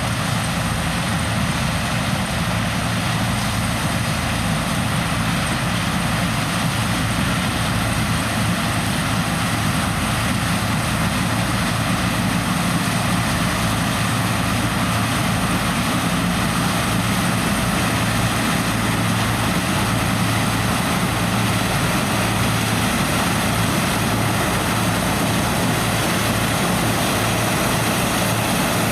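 Heavy diesel farm machinery running steadily at corn harvest: a combine and tractor, with a constant low engine hum under a wide mechanical noise.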